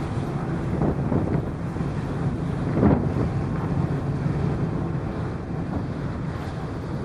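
Car ferry under way, its engines droning steadily low, with wind buffeting the microphone and a stronger gust about three seconds in.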